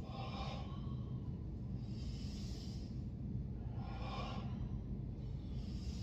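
Slow, deliberate breathing in a controlled breathing drill: audible breaths about every two seconds, alternating between a higher hissing breath and a lower, fuller one, over a steady low room hum.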